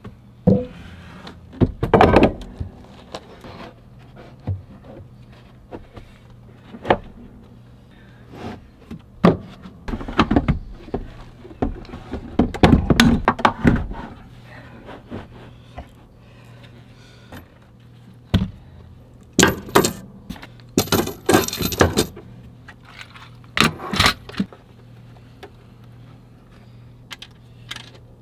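Hands-on installation clatter: metal mounting rails knocking together and being set down, heavy battery cases shifted into place, and scattered clanks and knocks. Sharp metallic clinking of loose hardware, like screws and brackets, comes in a cluster about two-thirds of the way through and is the loudest part.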